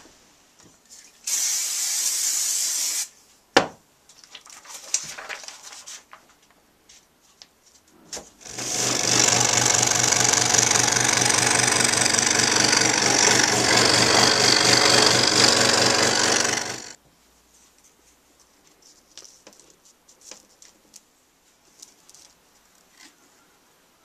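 Small electric scroll saw running and cutting wood for about eight seconds, a steady fast buzz from the reciprocating blade over a low motor hum. Before it, a short hissing burst lasts a little under two seconds.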